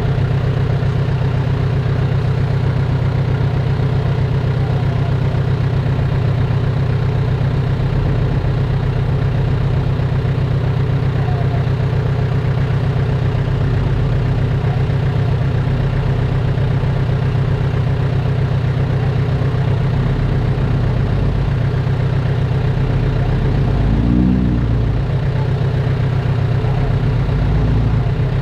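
Heavy diesel engine of earthmoving equipment running steadily with a low, even rumble, with a brief rise and fall in pitch near the end.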